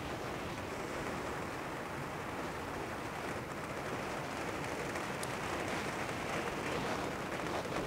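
Steady rain and wind on a greenhouse roof, heard from inside as an even, unbroken hiss.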